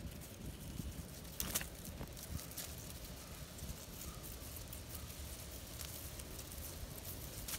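Low outdoor rumble with a few short rustling scrapes, the loudest about a second and a half in.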